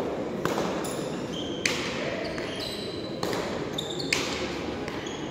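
A hard frontón ball smacking sharply off the wall, floor and players' hands during a rally, four impacts spaced about one to one and a half seconds apart, echoing in a large hall over a low crowd murmur.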